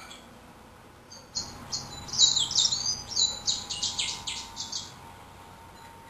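Male yellow-rumped seedeater (Serinus xanthopygius) singing one song phrase of about four seconds, starting about a second in: a run of high chirps and slurred notes that come faster toward the end.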